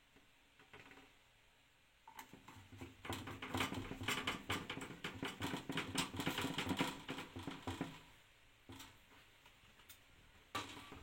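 Screwdriver driving small screws through a motherboard into its metal standoffs: a rapid run of small clicks and scrapes lasting several seconds, then a couple of single clicks near the end.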